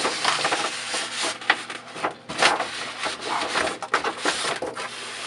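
A box being opened by hand, its lid and packaging rubbing and scraping irregularly, with a few sharp knocks, the loudest about a second and a half and two and a half seconds in.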